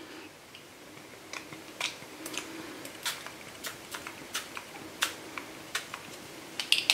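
Finger-pump spray bottle of Marabu acrylic art spray spritzing paint in a string of short, quick pumps, about two a second, starting a little over a second in.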